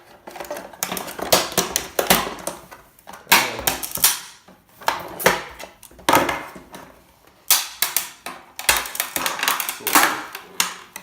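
Irregular clattering knocks and scrapes of plastic and metal parts as a paper shredder is pried apart by hand.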